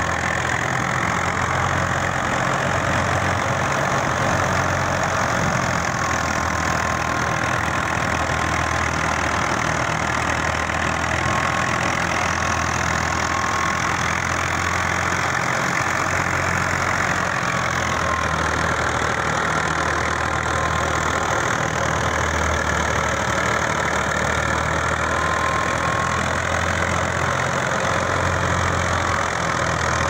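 Al-Ghazi tractor's diesel engine running steadily, driving a wheat thresher, with the thresher's steady whirring rush over the engine hum.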